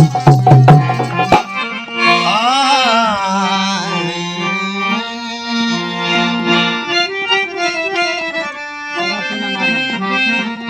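Instrumental interlude of a folk ghazal: a burst of quick hand-drum strokes, then a harmonium plays the melody alone from about two seconds in.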